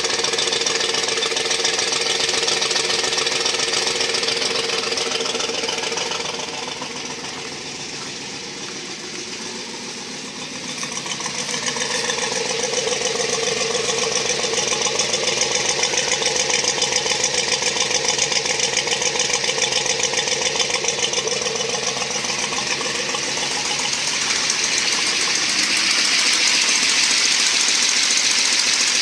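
A 1970 Ford Boss 302 small-block V8 idling and warming up after a cold start, heard at the exhaust tip as a fast, even pulsing that dips in loudness for a few seconds about a quarter of the way in. The exhaust headers are leaking badly; the owner calls them 'header leaks from hell', blowing flame onto a spark plug.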